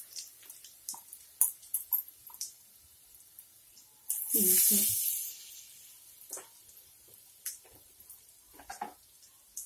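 Hot oil crackling and popping as batter-coated potato balls deep-fry in a pan. About four seconds in, a burst of loud sizzling sounds as another besan-dipped ball is dropped into the oil.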